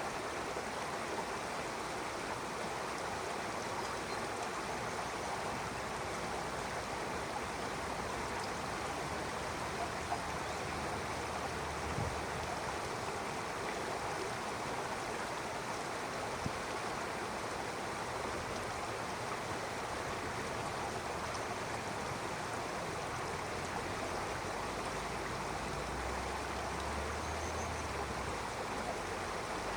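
Stream running steadily, a continuous even rush of flowing water with a few faint clicks.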